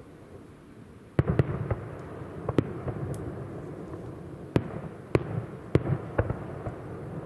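Aerial firework shells bursting: a quiet first second, then about eight sharp bangs at uneven intervals, with a low rumble between them.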